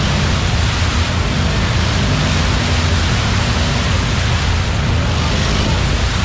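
Side-by-side UTV engine held at steady high revs while its spinning tires churn and throw mud in a deep mud hole, a continuous loud roar of engine and spraying mud.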